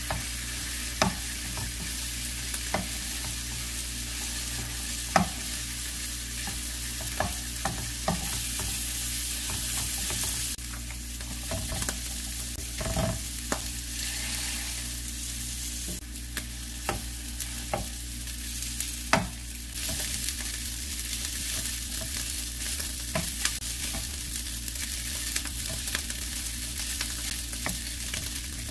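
Egg fried rice with shrimp sizzling in a nonstick frying pan while a wooden spatula stirs and scrapes it. The spatula knocks sharply against the pan now and then.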